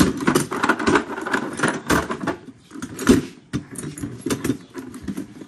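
Metal hand tools clinking and clattering in a steel Stanley toolbox as a hand rummages through them: a fast, uneven run of small metallic knocks.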